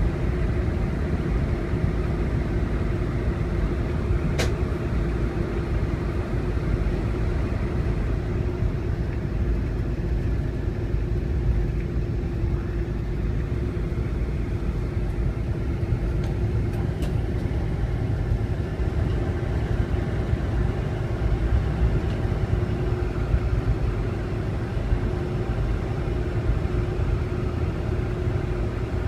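Cabin noise inside a Boeing 747-400 rolling on the ground: a steady low rumble from the engines and wheels with a steady hum over it, and a single sharp click about four seconds in.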